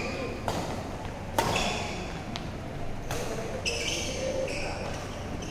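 Badminton rackets striking a shuttlecock in a doubles rally, three sharp hits about a second or more apart that echo in a large hall, with short high squeaks of shoes on the court floor.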